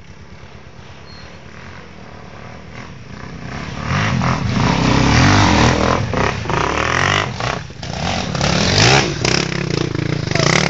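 Off-road motorcycle engine idling low, then revved hard from about four seconds in, its pitch rising and falling as it works under load, with some clattering knocks.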